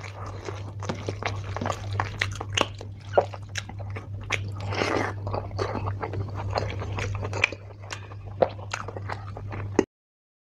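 Close-miked eating: a hand squishing rice and chicken liver curry on a plate, and wet chewing with sharp mouth clicks and smacks, over a steady low hum. It all cuts off abruptly near the end.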